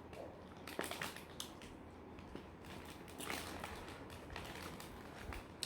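Faint chewing and mouth sounds of someone eating a chocolate chip oatmeal cookie, with a few small crackles and clicks scattered through.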